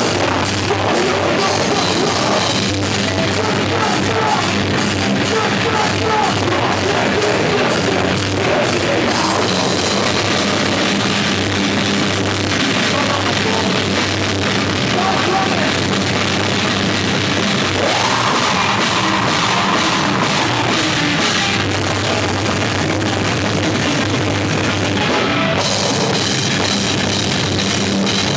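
Heavy metal / hardcore band playing loud live: drum kit with cymbals, electric guitars and bass guitar.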